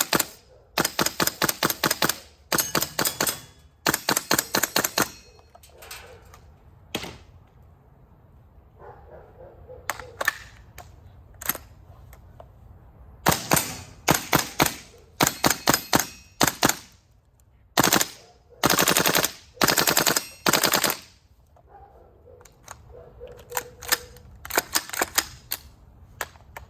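GHK HK416A5 gas blowback airsoft rifle firing short full-auto bursts of about a second each, with pauses and a few single shots between.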